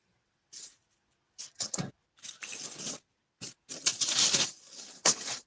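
Tissue paper rustling and crinkling as a wrapped package is unwrapped by hand, in irregular bursts, loudest about four seconds in.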